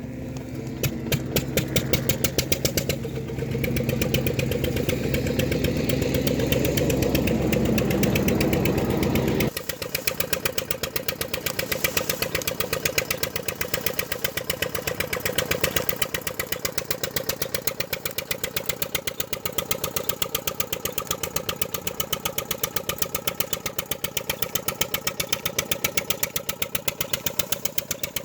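Engine running with a steady, rapid, even beat, typical of the diesel engine that drives a sugarcane crusher at a jaggery unit. About nine and a half seconds in, a heavy low rumble cuts off suddenly and the even beat carries on lighter.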